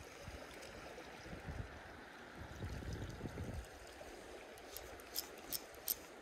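Faint lapping and trickling of sea water among shore rocks, under a low rumble that dies away about halfway through. Near the end come four or five sharp, light ticks.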